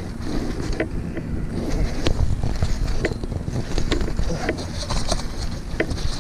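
Wind buffeting the camera microphone with a steady low rumble, and scattered light clicks and ticks from a fishing reel being cranked.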